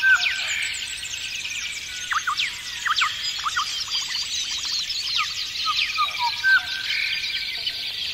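Dense chorus of many small birds chirping and calling, full of quick downward-sweeping notes overlapping one another.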